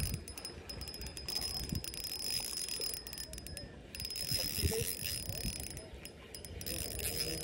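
Small spinning reel working against a hooked fish on ultralight tackle: a fine, high, rapid ticking whir from the reel's gears and drag, breaking off briefly about halfway, with a few soft knocks from handling the rod.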